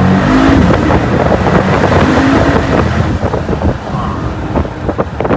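Mercedes-AMG G63's twin-turbo V8 at full-throttle acceleration in Sport Plus with the exhaust valves open, heard from inside the cabin. The engine note climbs and drops back with each upshift, and a run of sharp exhaust crackles comes near the end as the throttle eases.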